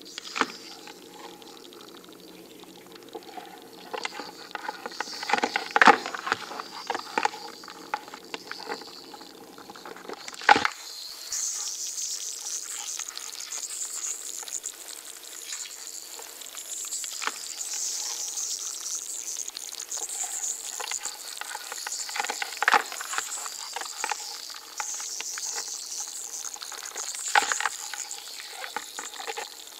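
A single manicou crab tapping and scrabbling with its claws: irregular light clicks and scratching, with a few sharper taps. About a third of the way in, a steady high hiss comes in behind the taps.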